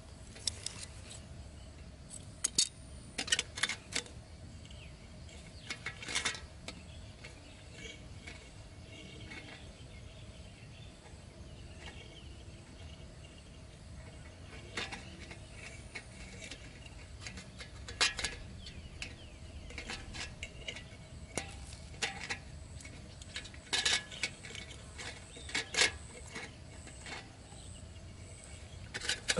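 Scattered light metallic clicks and taps as small wire pieces are worked by hand and fitted against an aluminium drink can.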